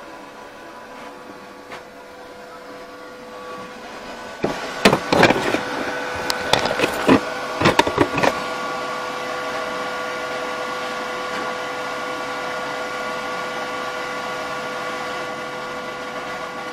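Handling noise: a run of sharp knocks and clatter from about four and a half to eight seconds in, as the camera is turned and moved. Under it runs a steady electrical mains hum of a few pure tones, which becomes louder after the clatter.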